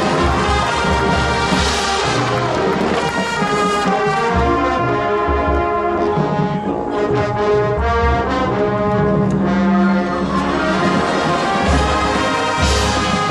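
Marching band playing, its brass section carrying long held chords over low brass, loud and full throughout.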